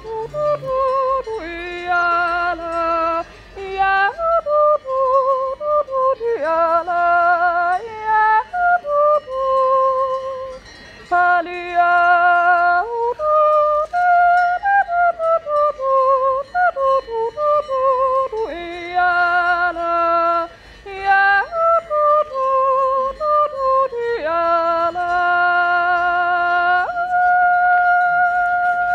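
A woman yodeling a Juuz, the wordless Central Swiss natural yodel, solo and unaccompanied. Her phrases leap back and forth between chest and head voice with short breaths between them, and close on a long held high note.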